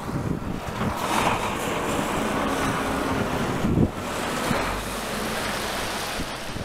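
Wind buffeting the microphone of a camera mounted on the outside of a moving vehicle, over the vehicle's road and engine noise, with one sharper knock just before four seconds in.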